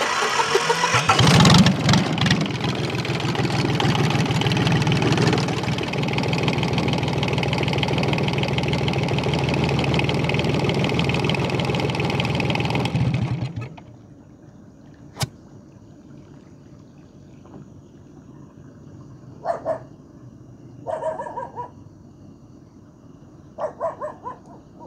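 Small boat engine starting up, running steadily for about thirteen seconds, then shut off. A few brief, faint sounds follow in the quiet.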